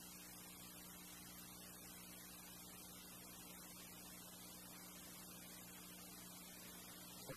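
Near silence: a steady electrical hum over faint hiss, with a short click at the very end.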